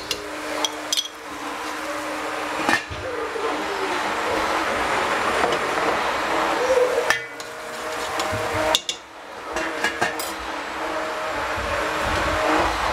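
Cooking utensils knocking and clinking against a pan, several sharp knocks in small clusters, over a steady hiss while tofu with chili pepper sauce is cooked and stirred.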